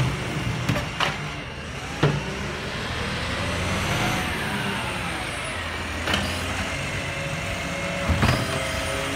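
Side-loader garbage truck with a Mercedes-Benz cab, its diesel engine running as it pulls slowly along between bins, rising in pitch and falling back around the middle. Several sharp knocks sound over the engine, one about every second or two early on and a pair near the end.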